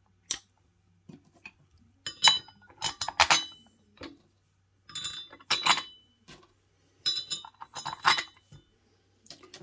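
Small metal bolts clinking and ringing as they are picked up and dropped into the holes of an adjustable dumbbell's weight plate, in three short bursts of clinks.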